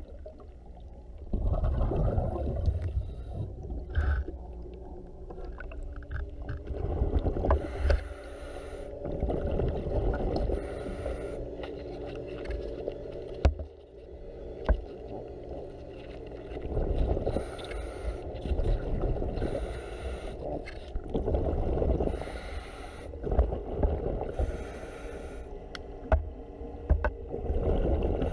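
Underwater breathing from a diver's regulator: surges of rushing exhaust bubbles every few seconds, some with a hiss of inhaled air, with a few sharp clicks between.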